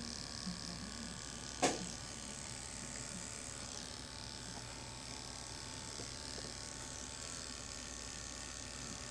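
Electric hair clipper running steadily while its blade is rested on and rolled off short hair to blend a fade. One sharp click comes about two seconds in.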